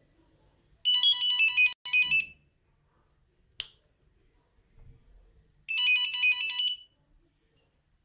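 Nokia 6310 mobile phone playing one of its built-in monophonic ringtones: a quick run of high electronic beeps, heard twice with a pause of about three seconds between. A single sharp click falls in the pause.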